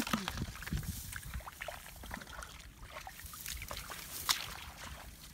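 Dry grass stems rustling and crackling in irregular short clicks as someone pushes through them, one louder snap about four seconds in, over a low steady rumble.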